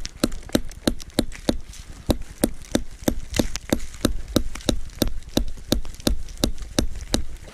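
Hammer driving a nail into a tree trunk: a steady run of sharp blows, about three a second.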